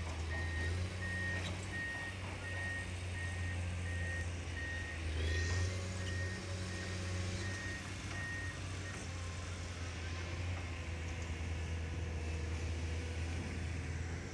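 Reversing alarm of a construction vehicle beeping at one steady pitch and an even pace, stopping about two-thirds of the way through, over the steady low hum of a heavy diesel engine running.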